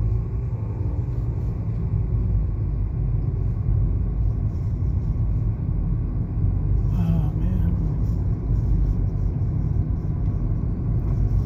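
Steady low rumble of a car driving along a road, as heard from inside the cabin.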